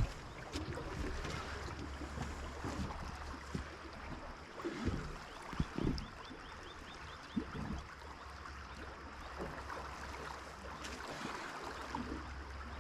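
River current rushing steadily, with wind rumbling on the microphone and a few brief low knocks.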